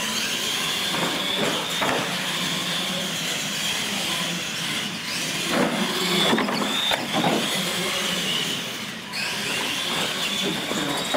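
Electric motors and gear drives of R/C monster trucks whining as they race, the high whine rising and dipping with the throttle over a bed of tyre and drivetrain noise, with a few louder bursts about halfway through.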